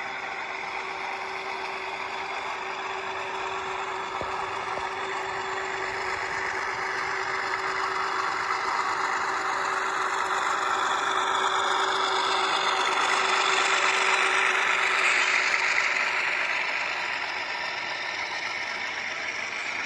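Model CN ES44 and Dash 8 diesel locomotives pulling a train, with a steady diesel engine sound and running noise. It grows louder as the locomotives pass close, loudest about 14 seconds in, then fades as the container cars follow.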